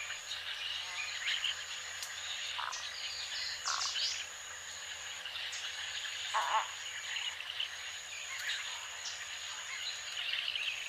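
Reddish egret giving a few short, rough croaks, the clearest about 2.6 and 6.5 seconds in. Behind them, a high, thin, steady buzz comes and goes every couple of seconds.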